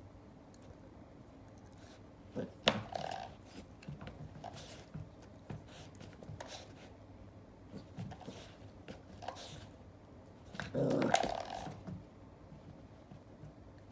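A puppy growling in play, with scattered sharp knocks and clicks as it paws and bites at a metal baseboard door stop. The loudest sounds are a sharp knock a few seconds in and a low growl of about a second near the end.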